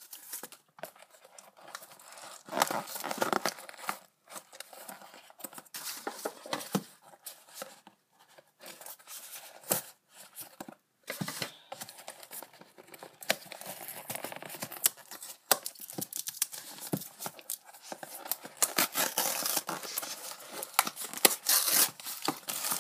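A cardboard box and its packaging being opened by hand: tearing and crinkling in irregular bursts with short pauses, busiest near the end.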